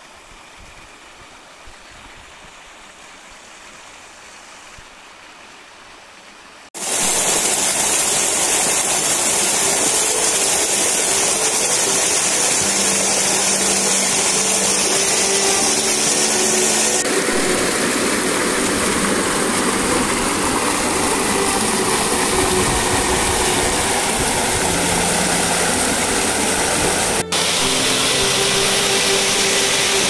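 Water of a small rocky waterfall rushing and splashing. It is faint at first, then about seven seconds in it turns suddenly loud as the rushing white water is heard up close, and its tone shifts abruptly a couple of times.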